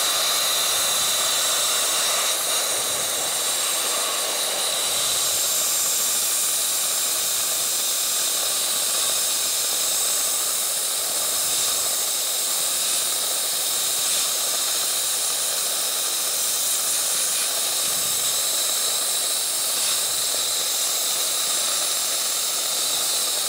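Dry ice blasting machine running at maximum power through its concentrated nozzle: a steady, loud hiss of compressed air and dry ice pellets blasting a rusty steel flywheel, knocking off its flaking surface rust.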